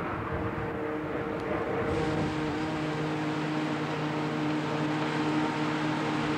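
Self-propelled forage harvester and tractor running steadily while chopping maize: a continuous engine drone. About two seconds in, a steadier low hum comes in.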